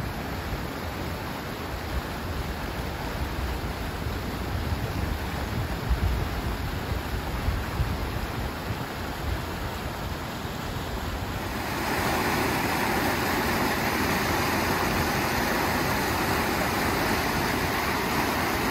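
Muddy flash-flood water rushing down a desert river wash: a steady, noisy rush with wind rumbling on the microphone. About twelve seconds in it turns suddenly louder and brighter, the churning floodwater close by.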